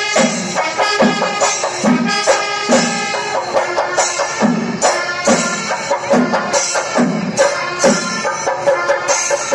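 Kerala temple-festival percussion ensemble playing: drums struck about twice a second with clashing cymbals, over a sustained wind-instrument melody.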